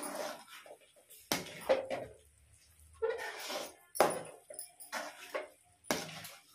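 Metal spatula scraping and knocking against a metal kadai while stirring thick rusk halva, about six strokes roughly a second apart.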